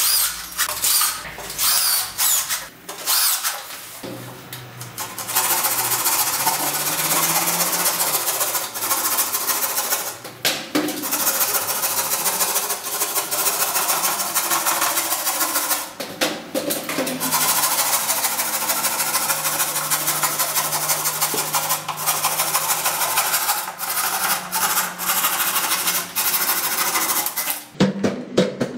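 Cordless drill-driver driving screws into gypsum board and metal ceiling framing. It runs in several short bursts that rise in pitch, then goes on almost without a break for about twenty seconds, pausing briefly twice.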